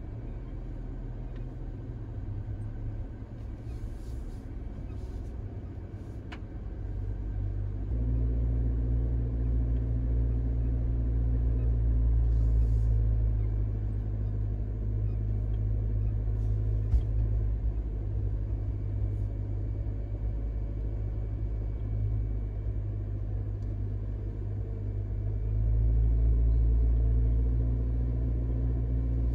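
Suzuki Jimny JB74's 1.5-litre four-cylinder engine and tyres under way: a steady low rumble of engine and road noise. It gets louder about eight seconds in, eases a little, then swells again near the end.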